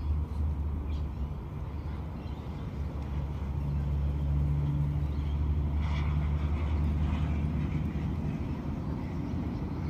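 Motorboat engine droning steadily, growing louder for a few seconds in the middle and easing off near the end.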